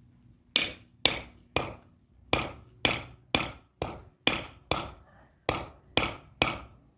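A dozen sharp knocks, about two a second, as the upright wooden handle of a two-stone hand quern is struck on its top, driving it into its hole in the upper millstone.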